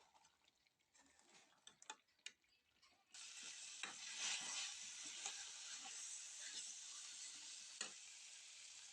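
A few light clicks and taps, then about three seconds in a sizzle starts suddenly as food goes into hot oil in a pan, crackling steadily from then on.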